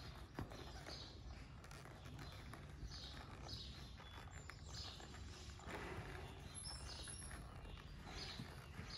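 Faint, soft hoofbeats of a Tennessee Walking Horse walking under a rider, coming unevenly about every half second, over a low steady rumble.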